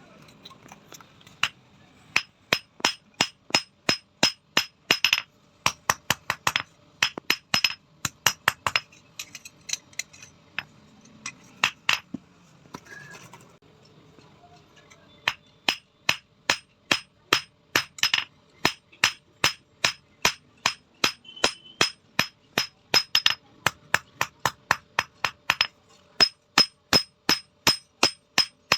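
Blacksmith's hand hammer striking metal on an anvil, a long run of ringing blows at about two to three a second, with a short pause around the middle.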